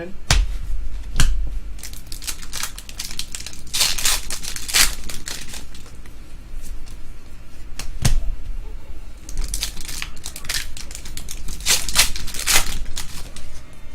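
Trading-card pack wrappers crinkling and tearing as packs are opened and cards are handled, with scattered sharp clicks and two longer spells of rustling.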